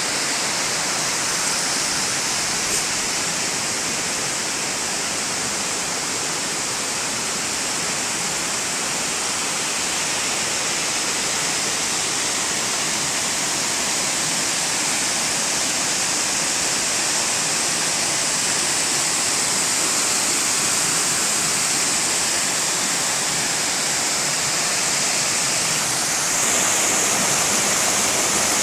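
Waterfall: a steady rush of falling, splashing water with a bright hiss, a little louder near the end.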